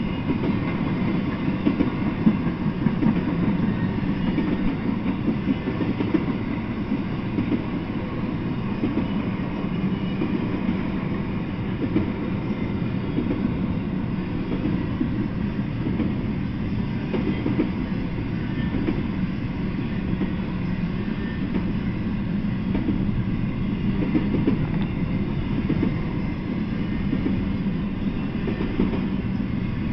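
Freight train of flatcars and container well cars rolling steadily past: a continuous low rumble of wheels on rail, with irregular clacks and rattles from the cars.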